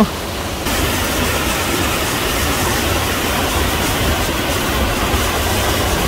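Steady rush of a rocky stream and waterfall, the water sound growing louder and brighter well under a second in, then holding even.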